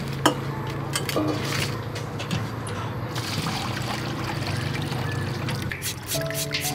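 Water trickling and splashing, with scattered light clicks over a steady low hum.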